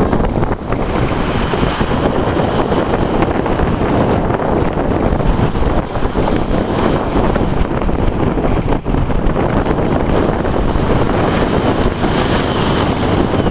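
Strong wind buffeting the microphone: a loud, steady rush of noise.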